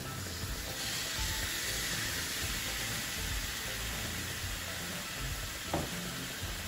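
Tandoori-marinated chicken sizzling on a hot grill pan, a steady hiss that grows stronger about a second in as the last piece goes down, under background music. A single click near the end.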